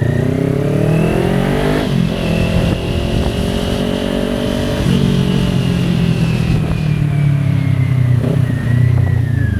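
Kawasaki Ninja 400's parallel-twin engine accelerating through the gears: the revs climb for about two seconds, drop sharply at an upshift, drop again about five seconds in at the next upshift, then hold steady and ease off slightly near the end.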